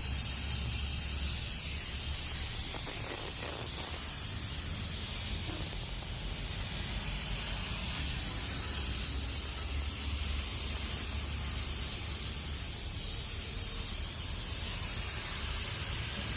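100 A plasma cutter hissing steadily, with a low hum underneath.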